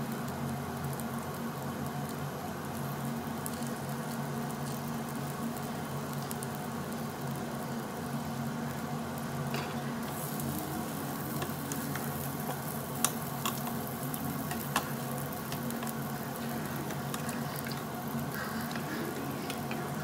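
Marinated duck meat and garlic cloves sizzling on a hot Korean barbecue grill plate, over a steady low hum. The crackling grows livelier about halfway through, with a few sharp pops a few seconds later.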